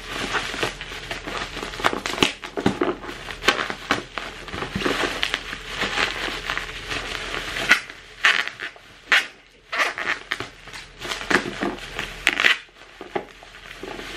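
Thick plastic bubble wrap around a parcel crinkling and crackling irregularly as it is cut and pulled open with a utility knife.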